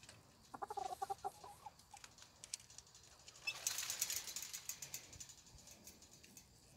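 A chicken clucking in a quick run of short notes about half a second in. About three and a half seconds in comes a burst of wing flapping and scratchy rustling, lasting about a second and a half, as chickens flap up onto a branch perch.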